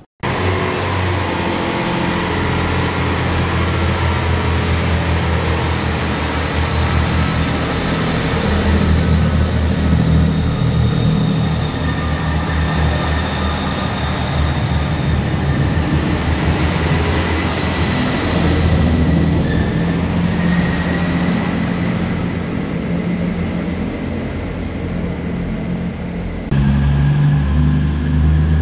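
Diesel passenger trains at station platforms, engines running with a steady low drone and a thin high whine over it. Near the end the sound changes abruptly to the louder engines of an Avanti West Coast Class 221 Super Voyager diesel-electric unit.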